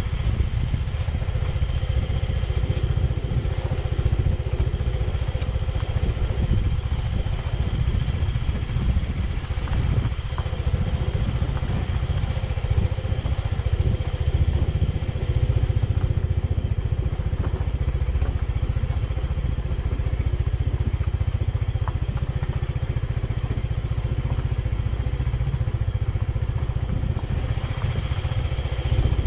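Motorcycle running steadily down a rough dirt track, with a deep, steady rumble. A hiss joins about halfway through and drops out near the end.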